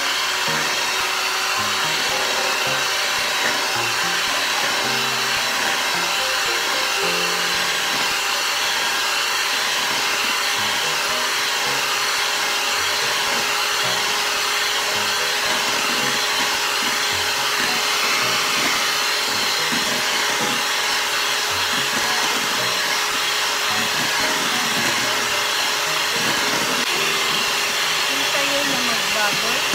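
Kenwood electric hand mixer running steadily, its beaters whipping egg whites in a stainless steel bowl toward stiff peaks.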